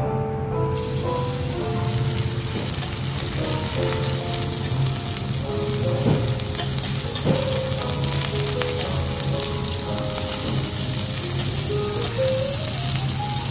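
Amadai (tilefish) fillet sizzling in hot oil on a steel teppanyaki griddle, the frying hiss filling in about half a second in as the fish goes down and holding steady. Two brief knocks of the metal spatulas on the griddle come near the middle.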